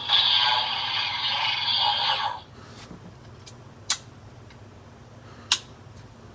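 Electronic sound effect from a Kamen Rider Build DX toy's built-in speaker, lasting about two seconds and cutting off suddenly. Two sharp plastic clicks follow from the toy being handled.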